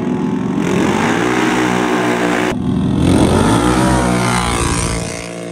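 Two ATV engines revving hard at full throttle as they race off the line on dirt, the pitch climbing then falling away near the end as they pull off.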